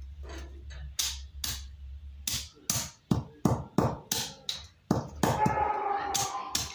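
A wooden mallet pounding chicken bones against a concrete floor, crushing them into bone meal: a run of sharp knocks, two or three a second, starting about a second in. A steady tone joins in over the last second and a half.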